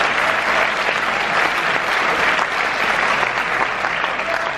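Audience applauding steadily: many people clapping at once, with no let-up.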